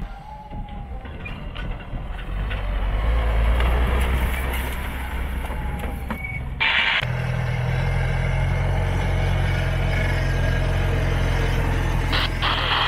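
Engines of off-road 4x4 pickups. A Mitsubishi L200 runs as it drives down a steep dirt slope. After a sudden change about seven seconds in, a closer engine runs steadily with a low hum, from a lifted Toyota Hilux.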